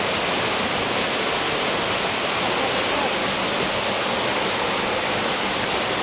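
Waterfall's falling water rushing steadily: an even, unbroken noise.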